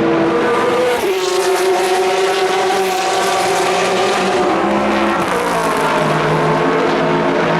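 Endurance race cars running at high revs, more than one engine note overlapping. The pitch jumps up about a second in and falls away from about five seconds in as cars pass and shift.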